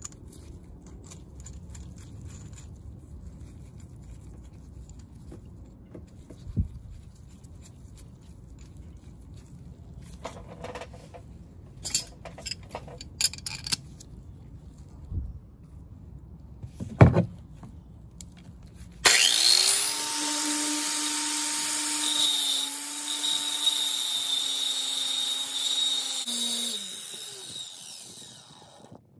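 A few metal clinks and knocks as pliers are clamped onto a steel wheel stud. About two-thirds through, a Harbor Freight angle grinder starts and grinds the end of an ARP extended wheel stud to shorten it: a steady whine with a harsh grinding hiss for about seven seconds, then the motor winds down.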